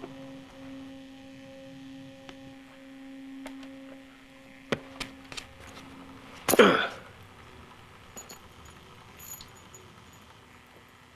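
A steady low humming tone with a higher overtone. About six and a half seconds in it gives way to a sudden loud swish lasting about half a second, followed by faint high clicks.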